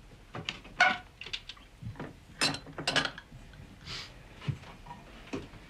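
Glasses and bottles clinking and knocking on a table as drinks are handled: a series of short, sharp clinks at irregular intervals, the loudest two about halfway through.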